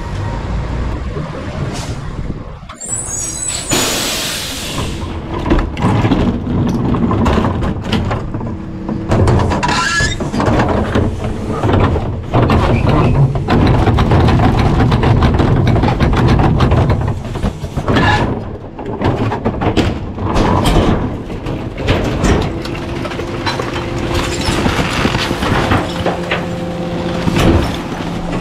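Rear-loader garbage truck at work: its engine and hydraulic packer run, with clatter and knocks as trash is crunched in the hopper, loudest about halfway through. About four seconds in there is a short burst of air hiss from the truck's air brakes.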